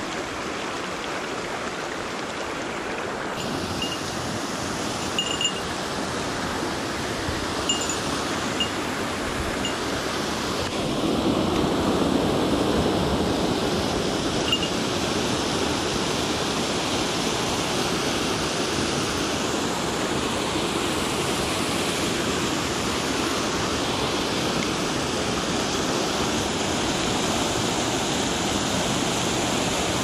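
Mountain stream rushing over rocks, joined by the steady roar of water pouring over a concrete check dam, which grows louder about a third of the way in and then holds. A few faint short high ticks sound in the first half.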